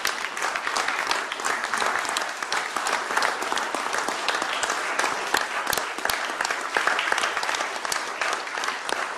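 Audience applauding: many people clapping together, a dense steady patter with single sharper claps standing out.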